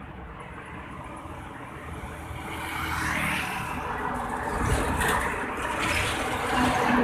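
Heavy trucks passing close by on a highway one after another, their tyre roar and diesel engine rumble swelling as each goes by. The noise builds from about a third of the way in, with several rushing peaks.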